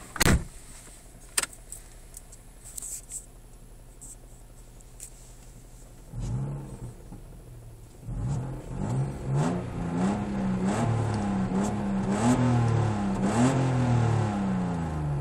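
A sharp click near the start, then, after a few quiet seconds, the Opel Omega B's engine comes to life about six seconds in. From about eight seconds it is revved up and down again and again while the car stands still, heard from inside the cabin, through an exhaust the owner calls bad.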